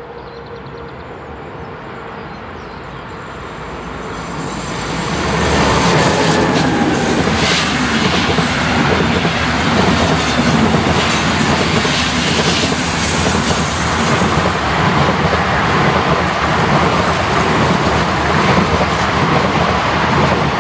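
An electric-hauled passenger train, a black Siemens ES 64 F4 locomotive pulling coaches, approaches and grows steadily louder over the first five seconds or so. It then passes close by, with the coaches rolling past in a steady rush, clickety-clack over the rail joints and a faint squeal of wheels on the curve.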